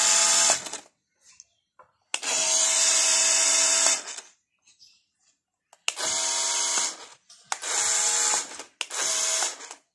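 A toy RC car's small electric motor and plastic gears whirring in short bursts, switched on and off from the remote, with the car upside down so the wheels spin in the air. There are five bursts: one stopping about half a second in, a longer one of about two seconds, then three shorter ones near the end, each starting and stopping abruptly.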